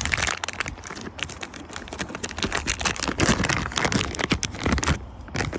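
Rapid small clicks, taps and crinkles of hands handling a new rubber diaphragm and the small parts of a water heater's water valve, stopping about five seconds in.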